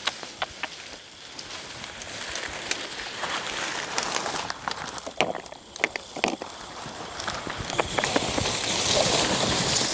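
Rustling, crackling noise with many scattered sharp clicks and taps, getting louder over the last few seconds.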